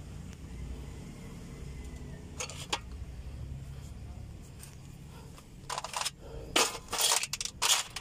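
Small metal brake parts clinking and rattling against a metal pan as they are handled. A couple of faint clicks come first, then a quick run of sharp clinks in the last two seconds or so.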